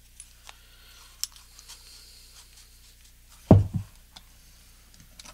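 An ignition coil being handled and fitted into its metal mounting clamp: faint scattered clicks and scrapes, with one louder knock about three and a half seconds in.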